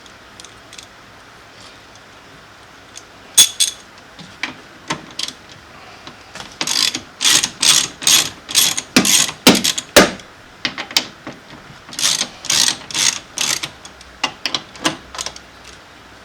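Hand ratchet clicking in short runs of back-and-forth strokes, working a T30 Torx bit on the screws that hold a car door lock actuator. There are a few single clicks at first, then two longer runs of quick strokes in the middle.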